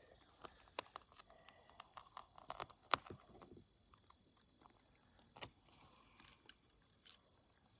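Faint scattered clicks and light taps, with one sharper knock about three seconds in and another a couple of seconds later, over a steady high chirring of crickets.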